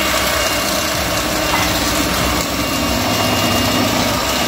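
Electric hand mixer running steadily, its beaters whipping sweetened egg whites into meringue in a stainless steel bowl as guava juice is poured in.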